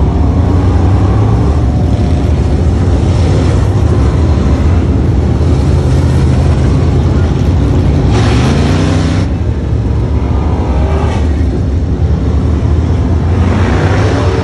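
Several dirt late model race cars' V8 engines running at speed around a dirt oval, a steady heavy drone. The pitch rises as they accelerate, and the sound swells as a car passes close about eight seconds in and again near the end.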